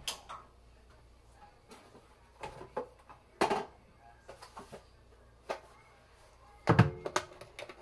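Kitchen handling sounds: scattered knocks and bumps, then near the end a quick run of loud clinks of cookware that ring briefly.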